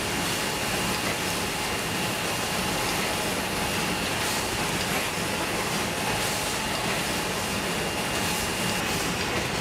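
Tea-bag packaging line machinery running steadily: a constant mechanical whirr with a thin high whine held throughout and faint light clicks now and then.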